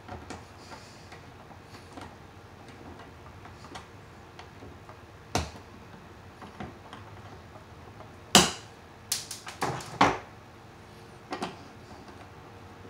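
Hand tools and wiring worked at a metal electrical junction box: scattered light clicks, a sharp clank just past five seconds in, and a cluster of louder clanks and clicks about eight to ten seconds in.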